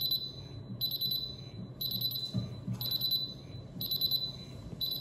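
Senko SGT-P hydrogen sulphide gas detector's audible alarm: a high-pitched electronic beep about once a second, each about half a second long, over a low hum. It is sounding because test gas fed in through the calibration cap has pushed the reading into alarm.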